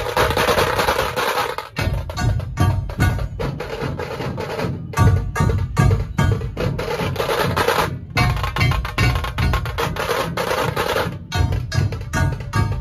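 Dhol-tasha ensemble playing: tashas rattling out fast stick strokes over heavy dhol beats, the rhythm breaking off briefly a few times.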